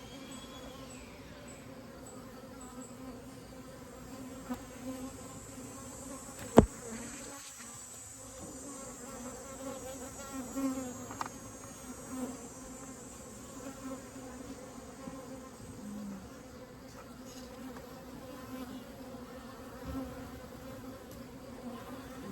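Honeybees buzzing around an open hive, a steady hum. One sharp click about six and a half seconds in.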